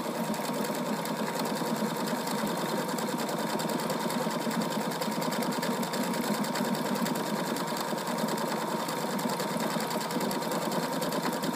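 Husqvarna Viking Designer Diamond Royale sewing machine stitching an appliqué stitch with the side-motion foot at a steady speed: fast, even needle strokes over a steady motor tone.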